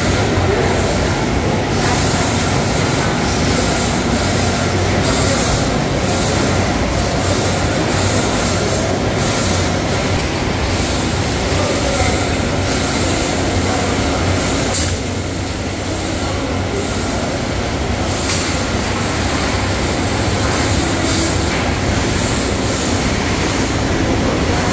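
Steady din of seafood-processing machinery running, a constant low hum under a wash of noise, with irregular metallic clinks and clanks from the chain conveyor and plastic baskets.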